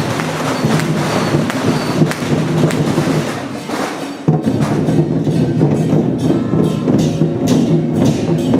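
Lion dance percussion: drum, gongs and cymbals beating fast and continuously. It eases off briefly a little before the middle, then comes back in loud all at once.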